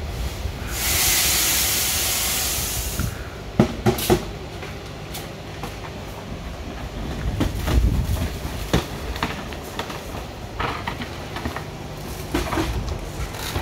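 ANYSORT VM764 colour sorter running with a steady low hum. About a second in, mung beans pour into its feed hopper with a rushing hiss for about two seconds, followed by scattered sharp clicks and knocks.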